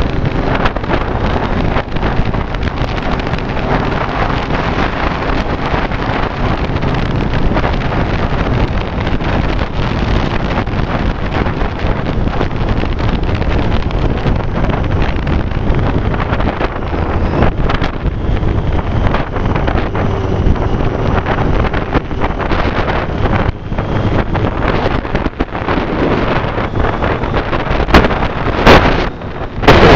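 Heavy wind noise on the microphone of a motorcycle at road speed, with the Triumph Street Triple's three-cylinder engine running faintly underneath. A few louder blasts of wind noise come near the end.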